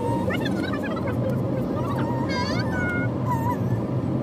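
Birds calling, a string of short wavering chirps and calls, over the steady low rumble of a car driving.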